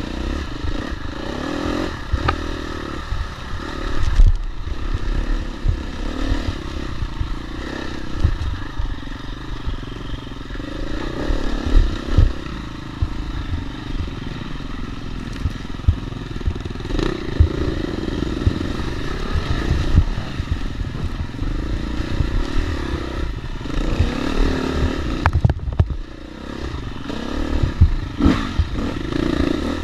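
Dirt bike engine running hard, its revs rising and falling continually, with frequent knocks and rattles from the bike over rough trail.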